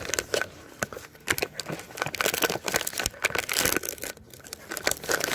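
A dog-treat package being crinkled and torn open by hand, with dense irregular crackling that is loudest in the middle stretch.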